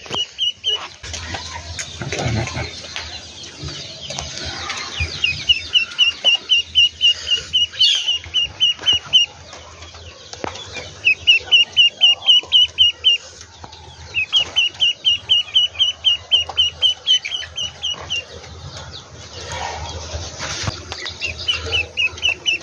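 Duckling peeping: runs of short, high calls at about five a second, broken by pauses of a second or more.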